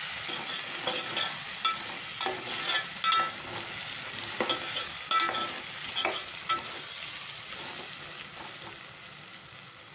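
Metal spoon stirring and scraping potatoes and onions frying in a metal pot, clinking against its sides over a steady sizzle of hot oil. The clinks come irregularly and grow fewer and quieter near the end.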